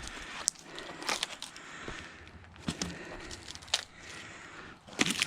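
Split firewood being handled: scattered knocks, crunches and crackles, with a sharp knock just before the end.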